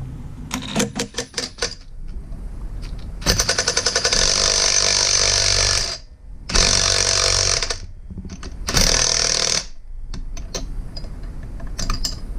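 Cordless impact driver hammering as it runs down the motor mount's pivot bolt against a wrench held on the nut, in three runs: about three seconds, then just over a second, then a short burst. A few light clicks of hand tools come before and after.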